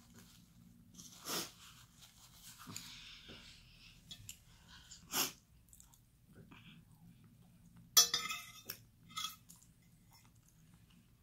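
A person chewing a mouthful of rice and cheese enchilada close to the microphone, with a few short clinks of a metal fork against the plate. The loudest clink comes about eight seconds in.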